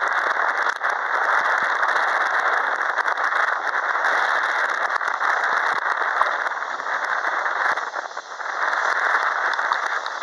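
Airbus A320-232's IAE V2500 jet engines running at low taxi power as the airliner turns onto the runway to line up: a steady, loud rushing noise with small crackles, dipping briefly about eight seconds in.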